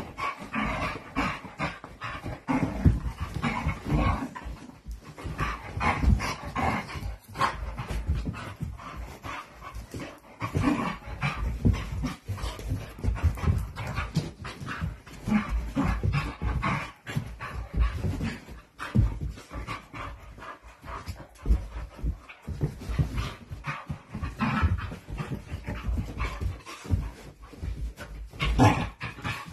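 Two dogs play-wrestling: panting, with an irregular run of scuffles and bumps of bodies and paws on carpet.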